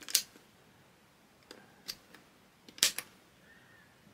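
A Fluke 12 multimeter's stiff push buttons being pressed hard, a few sharp plastic clicks spread out, the loudest a close pair about three seconds in.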